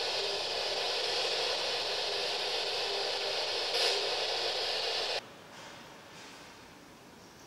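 Steady static hiss, like a radio between stations, from the investigators' spirit-communication device. It cuts off suddenly about five seconds in, leaving only a faint background.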